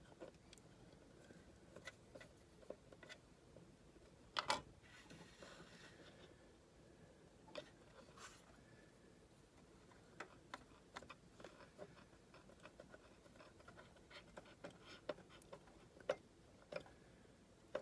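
Faint scattered clicks and light taps of a magnetic screwdriver working a small screw to fasten an M.2 NVMe SSD to a motherboard. One louder click comes about four and a half seconds in, and the clicks come thicker in the second half.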